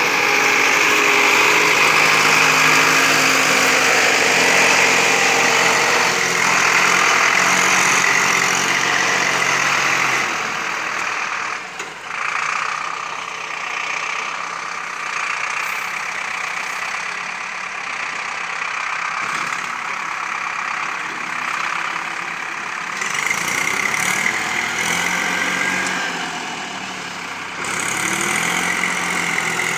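Tractor diesel engines working hard under load as a four-wheel-drive Zetor strains to tow a bogged-down Ursus tractor and trailer out of mud. About ten seconds in, the steady engine note drops and the sound turns quieter and rougher, and a clearer engine note returns near the end.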